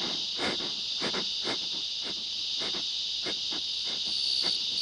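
Steady high-pitched insect chorus, with short soft clicks or rustles about every half second. About four seconds in, a clearer, pulsing insect trill joins.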